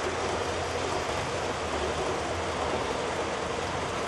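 HO-scale model trains rolling along the track: a steady, even running noise with a low hum beneath it.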